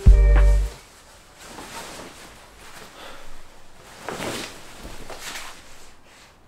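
Music with a deep throbbing bass cuts off suddenly under a second in. After it come quiet swishes and rustles of a jacket being pulled on, the clearest about four and five seconds in.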